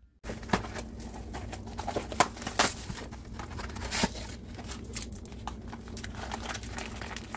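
Cardboard sleeve, plastic tray and plastic pouch of a packaged ready meal being handled and opened: continuous crinkling and rustling with sharp clicks and a few louder snaps, over a steady low hum.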